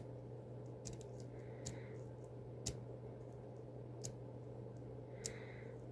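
Faint, irregular small clicks of lock picks working inside an EVVA 4KS lock, about half a dozen over a few seconds, as the picker tries to set its stubborn fifth element.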